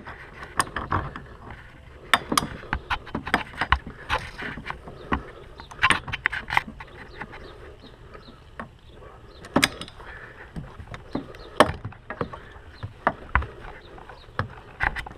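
Irregular clicks, taps and scrapes of locking pliers and hands working at the spring clamp on the bottom hose of a plastic coolant reservoir tank.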